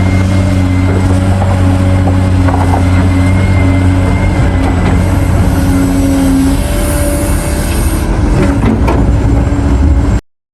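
Heavy diesel engine of mining equipment running steadily with an even low hum. It stops abruptly near the end.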